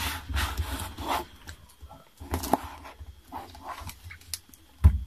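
A small cardboard product box handled in the hands: irregular rubbing, sliding and light clicks of the card against the fingers as it is turned over.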